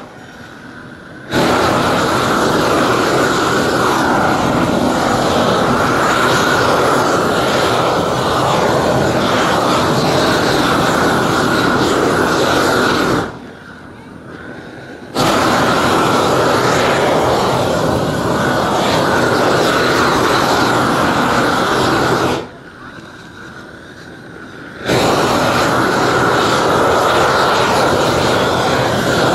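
Propane roofing torch burning with a steady loud rush as it heats the underside of a roll of granulated rubber-modified bitumen torch-down so the sheet melts and bonds as it is rolled out. The flame noise drops away abruptly three times for a second or two: at the start, about 13 seconds in, and about 22 seconds in.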